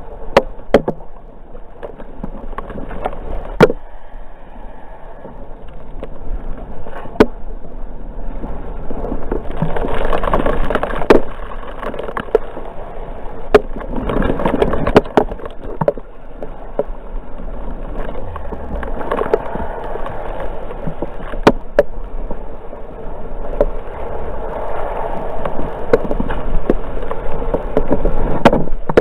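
Water rushing and splashing around a kayak on the river, swelling in surges every few seconds, with sharp knocks now and then.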